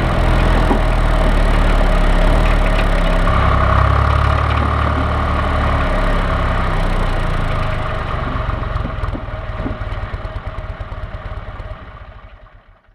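John Deere 1130 tractor's three-cylinder diesel engine running. From about eight seconds in it drops to separately heard, slowing firing pulses and dies away, as an engine does when it is shut off and runs down.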